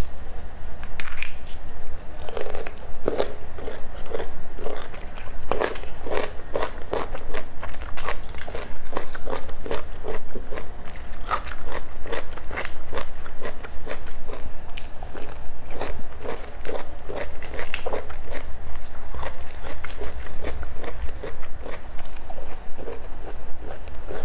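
Crunchy biting and chewing of food, a dense run of crisp crackles and wet clicks throughout.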